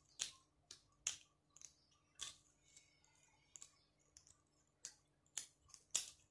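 Close-miked eating sounds: faint, irregular sharp clicks and crackles, one or two a second, as fried tilapia is pulled apart by hand and chewed, with the loudest click just before the end.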